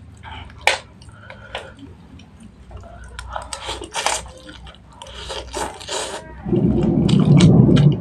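Close-miked mukbang eating of instant noodles: spoon clicks and lip smacks, then a few seconds of slurping noodles. About six and a half seconds in, a loud low rumbling noise sets in and becomes the loudest sound.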